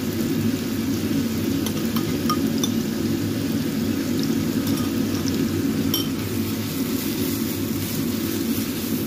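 Chopped shallots, garlic and candlenut frying in oil in a non-stick wok, a steady sizzle over a low hum. Light scattered clicks, with one sharper click about six seconds in, and a spatula scraping the pan near the end.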